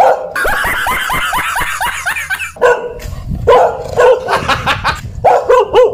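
Fierce barking and snarling like an angry dog: a dense run of rapid barks, a brief break about two and a half seconds in, then more separate barks.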